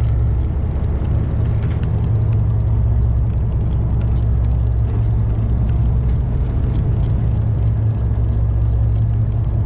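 Steady low rumble of a 61-foot sportfishing boat's engines running, with an even level throughout.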